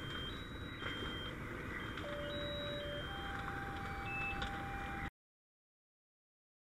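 Electronic two-tone beeping, alternating between two high pitches in half-second steps, heard twice, then a lower steady tone that steps up to a higher pitch about three seconds in. This plays over a steady rumble. The sound cuts out completely about five seconds in.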